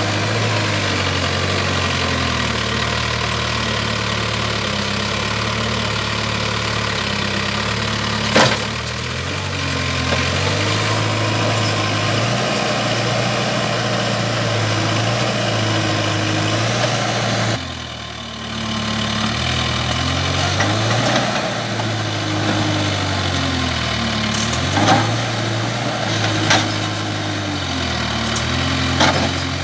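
Backhoe loader's diesel engine running under load, its pitch rising and falling over and over as the hydraulic digging arm works. A few sharp knocks cut through it, once about eight seconds in and several times near the end.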